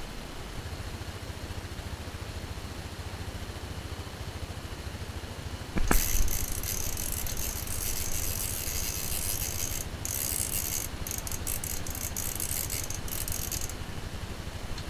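Ice-fishing reel's drag clicking in a fast, high-pitched rattle as a hooked pumpkinseed sunfish pulls line. It starts with a sharp knock about six seconds in and breaks into stutters before stopping near the end, over a low rumble.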